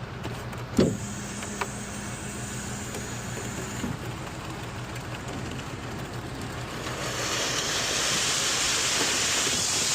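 Concrete mixer truck engine running steadily, with a sharp knock about a second in and a hissing noise that builds over the last few seconds.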